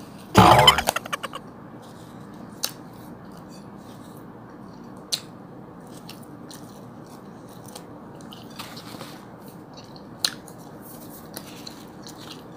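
Biting into a toasted khubz flatbread: a loud crackling crunch about half a second in, then faint chewing with a few small clicks and a brief rustle.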